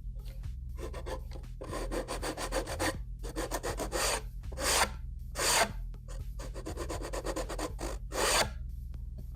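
Repeated strokes of something rubbing or scraping across wood, in bursts of varying length, with a steady low hum underneath.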